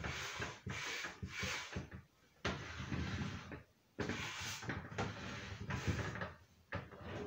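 A Silverstone PC tower case being turned over by hand and set down on a wooden desk: three spells of rubbing and scraping with light bumps.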